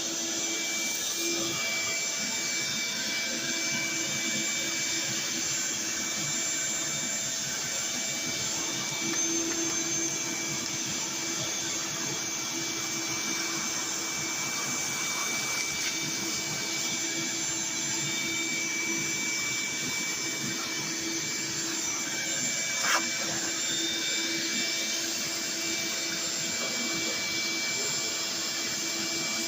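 Vacuum cleaner running steadily, sucking sawdust out of the inside of a belt sander. There is one brief knock about two-thirds of the way through.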